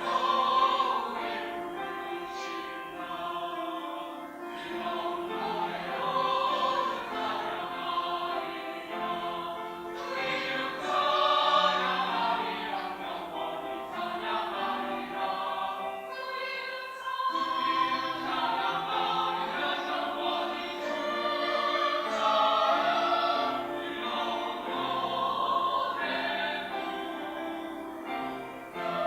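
Church choir singing a sacred anthem in parts, holding long sustained notes.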